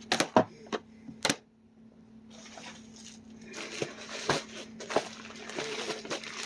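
A few sharp clicks, then from about two seconds in a steady rustling and crinkling of a mail package's packaging being handled and opened.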